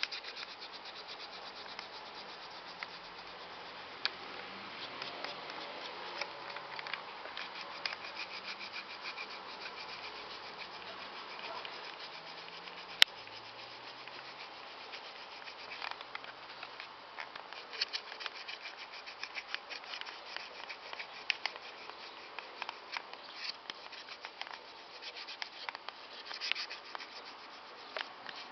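Rubber eraser scrubbing rapidly back and forth on the hard plastic shell of a Nerf gun to rub off scuff marks: a dense rubbing with many small ticks. A single sharp click stands out about halfway through.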